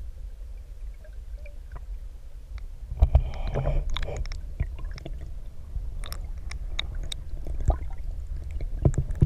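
Muffled underwater rumble of river current, with scattered sharp clicks and knocks that grow louder about three seconds in.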